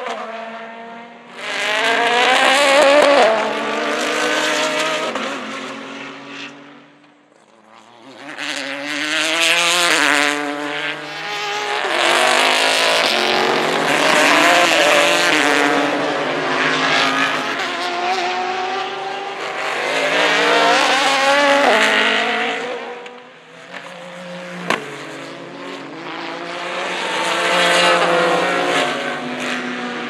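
Sports-prototype race cars passing one after another at racing speed, about five passes, each engine note swelling and gliding up and down in pitch as the car goes by. A short sharp crack sounds about two-thirds of the way through.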